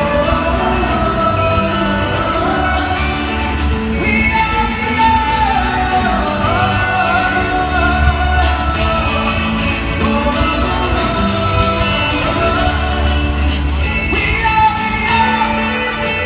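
Live rock band playing a song with sung vocals, drums and bass, heard across a large arena from high in the stands.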